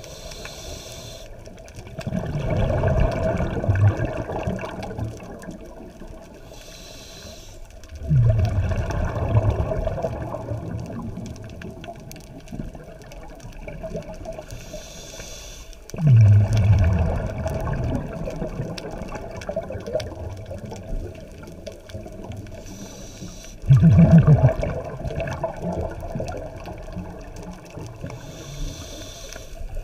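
Scuba diver breathing through a regulator underwater: a short hiss as he breathes in, then a loud gush of exhaled bubbles that fades over a few seconds. The cycle repeats about every eight seconds.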